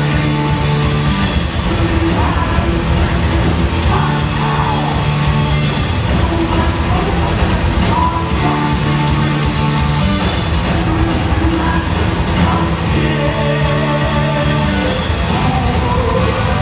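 Heavy metal power trio playing live and loud: distorted electric guitar, bass guitar and drum kit.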